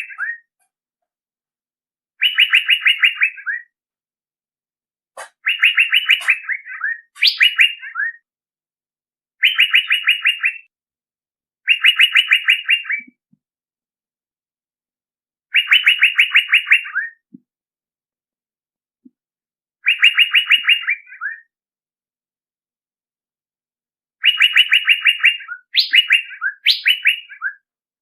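Male Asian fairy-bluebird call played as a bird-lure recording: short phrases of rapid, buzzy notes, each about a second long, repeated roughly every two to four seconds. Some phrases end in a few higher, rising notes.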